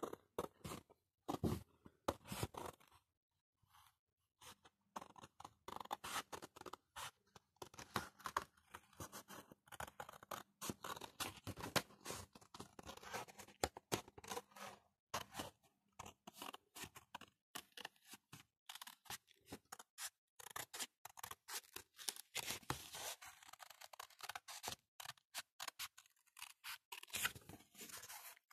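Scissors cutting through thin grey card in many quick, short snips, pausing briefly about three seconds in.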